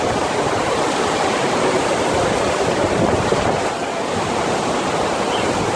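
FlowRider surf machine's pumped sheet of water rushing steadily over the ride surface, a loud, even roar of water.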